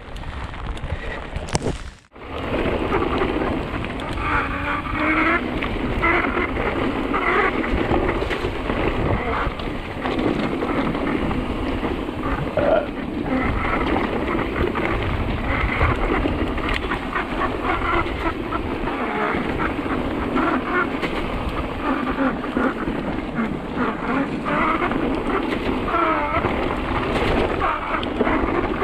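Mountain bike on the move down a trail: steady wind rumble on the camera microphone with irregular clatter of tyres and bike over rough ground, after a brief dropout about two seconds in.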